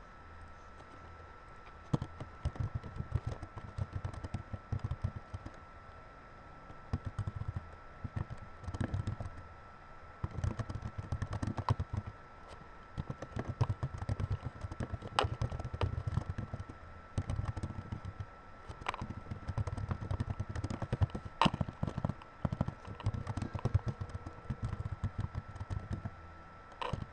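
Typing on a computer keyboard: fast runs of key clicks with brief pauses, starting about two seconds in and stopping just before the end. A faint steady high tone runs underneath.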